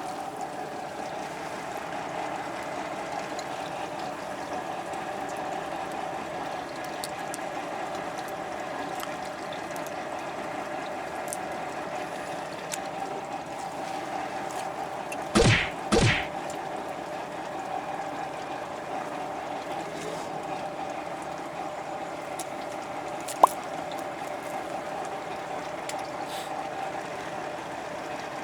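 Fishing boat under way: a steady engine drone and rushing water. Two short loud sounds come close together about halfway through, and there is a single sharp click later on.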